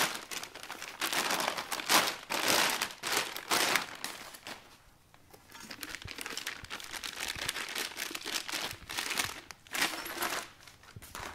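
Clear plastic shipping sleeves crinkling as they are pulled off metal bars by hand, in repeated bursts with a short lull about halfway through.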